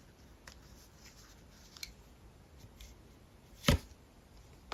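Tarot cards handled on a table: a few faint clicks, then one sharp tap about two-thirds of the way through as a card is put down.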